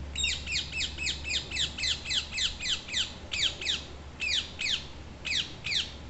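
Ring-necked parakeet giving a fast run of shrill screeching calls, each falling steeply in pitch, about four a second for three seconds, then a few more calls in pairs with short gaps.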